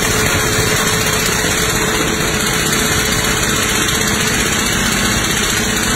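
Sport motorcycle engine held at high revs in a burnout, running steadily and loudly while the rear tyre spins on the paving.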